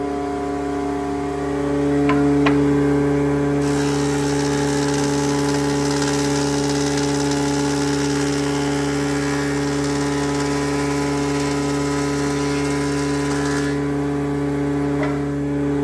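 Wadkin RM three-phase planer thicknesser running with a steady hum. A board is fed through: a couple of sharp clicks about two seconds in, then the cutter block chipping the wood adds a loud, dense hiss for about ten seconds before the machine drops back to its hum near the end.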